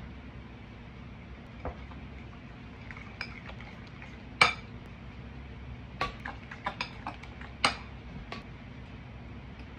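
Metal utensil clinking and knocking against a bowl while food is mixed, in scattered separate strikes over a steady low hum; the loudest knock comes about four and a half seconds in and a quick cluster follows about a second and a half later.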